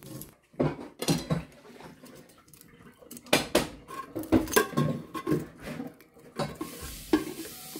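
Metal kitchen tongs clicking and clinking against the air fryer's basket and the crisp fried fish, a string of short knocks, some with a brief metallic ring. A faint hiss, typical of the hot basket sizzling, comes in near the end.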